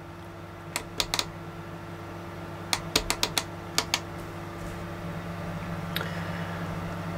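Push-button clicks on a HoLife digital soldering station as the temperature plus button is pressed repeatedly to raise the set point to 400 degrees: about ten sharp clicks in three quick bunches over the first four seconds, over a steady low hum.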